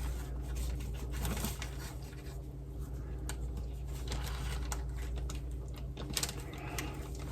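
Soft rustles and light taps of a low-carb tortilla being folded and rolled around a burrito filling by hand, over a steady low hum.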